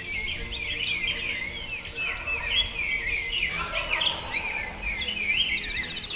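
Dawn chorus of songbirds chirping, with a wild turkey gobbling a little past the middle. A bird's fast, even trill starts near the end.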